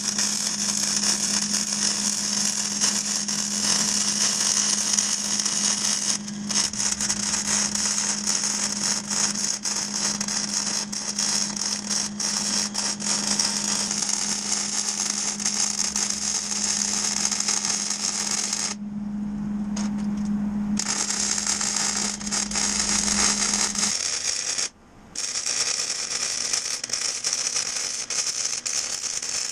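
MIG welding arc crackling and sizzling steadily as a bead is laid, broken by a few brief stops when the trigger is released. A steady low hum runs under it and stops about three quarters of the way through.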